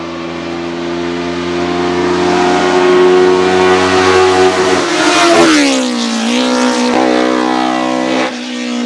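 Hillclimb prototype race car's engine at high revs, growing louder as it approaches, then dropping in pitch as it passes about five seconds in. After that the revs rise and fall several times, with a brief lift off the throttle near the end.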